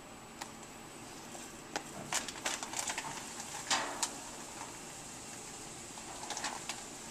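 Scattered rustling and light clicks of hands working inside a dry-cleaning machine's drum as activated clay filter powder is emptied onto a towel. The noises come in short clusters about two seconds in and again near the end, over a faint steady room hum.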